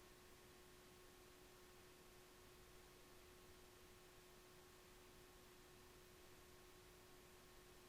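Near silence: faint steady hiss with a thin, constant low hum-like tone underneath.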